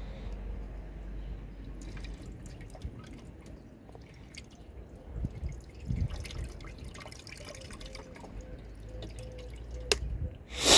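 Scattered small clicks and taps of hand work on car parts, with a sharper click near the end.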